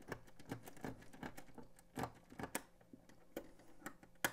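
Small thumb-wheel combination lock's code wheel being turned by a fingertip, clicking irregularly through its detents, with one sharper click near the end. A thin decoder blade presses against the internal wheel as it turns, feeling for the flat spot that gives away the digit.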